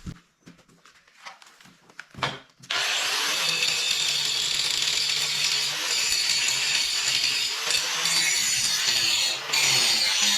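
Angle grinder grinding a chamfer into the steel edge of a digger bucket bracket, starting abruptly about three seconds in after a few quiet clicks, then running steadily with a high, even grinding hiss and a brief dip near the end.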